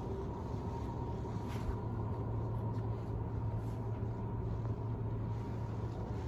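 Steady low hum of indoor room noise, with a faint steady higher tone above it.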